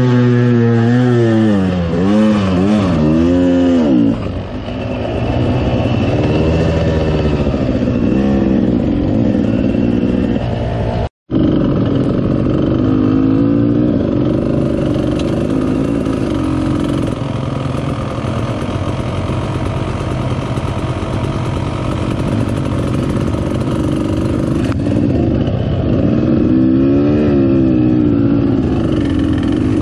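Dirt bike engine revving up and down as the bike is ridden, its pitch rising and falling again and again. The sound drops out for an instant about eleven seconds in.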